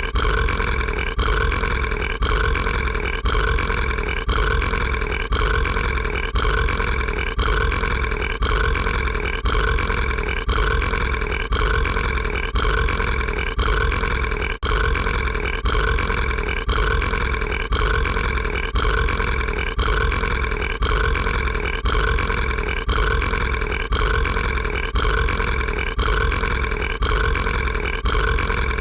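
An animated character's drawn-out burp, looped so that the same roughly one-second stretch of it repeats over and over without a break.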